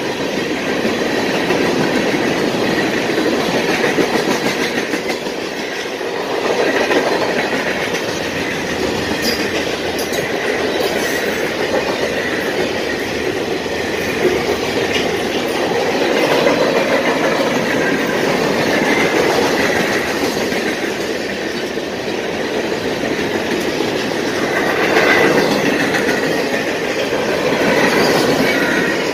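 Freight train cars rolling past close by: a steady rumble of steel wheels on the rails with clicking over the rail joints. It swells and eases a little as the cars go by.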